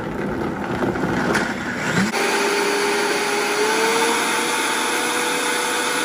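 Vitamix blender blending frozen pineapple chunks, pineapple juice and ice cream into a thick frozen mix. It churns roughly at first, then about two seconds in the motor rises to a steady high whine that climbs a little in pitch.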